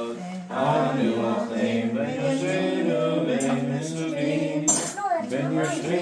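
A group of voices singing a Passover seder song together, holding sung notes that step up and down in a tune. There is one brief sharp click about three-quarters of the way through.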